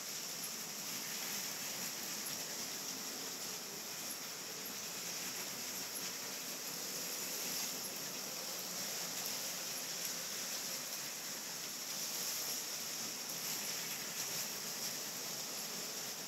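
Steady hiss with the faint whirr of small LEGO train motors running on plastic track.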